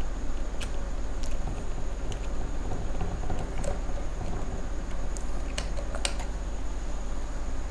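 Precision screwdriver driving a tiny screw into the plastic pop-up flash housing of a Canon EOS 200D: about half a dozen sharp, scattered clicks of the bit and screw. Underneath is a steady hum and hiss with a faint, constant high whine.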